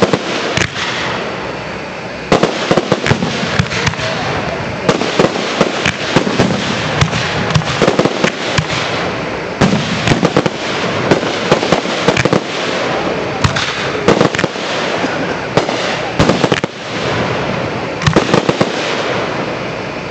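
Aerial fireworks shells bursting in a rapid, continuous barrage: many sharp bangs in quick succession, often several a second, over a constant rough background noise.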